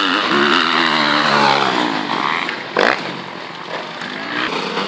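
Dirt bike engines on a motocross track, revving with the pitch rising and falling under the throttle. A short loud burst of noise comes a little before the middle, then the engine sound settles to a steadier note.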